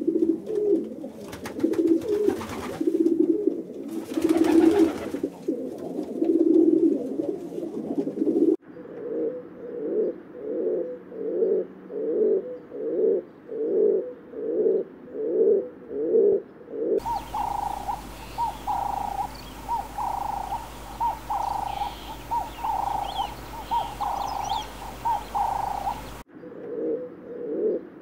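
Pigeons and doves cooing in several spliced clips. First comes low, overlapping cooing, then a run of evenly spaced coos at about one and a half a second. In a long middle stretch the coos are higher-pitched and pulsing over a steady low hum, and the low coos return near the end.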